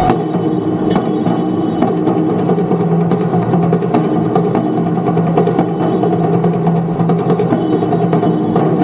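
Japanese taiko drums (wadaiko) playing fast, dense rolls and strikes, with a low held tone sounding under the drumming for much of the time.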